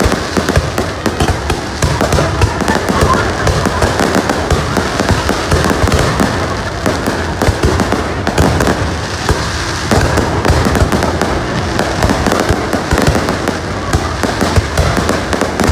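Fireworks display: a dense, continuous barrage of rapid bangs and crackles with no let-up.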